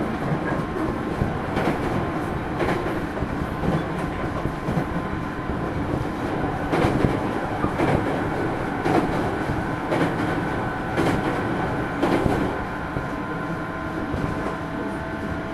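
Running sound inside a JR East 205 series 0 electric train's motor car (MoHa 204) at speed: a steady rumble of wheels and traction motors, with repeated rail-joint clacks about once a second.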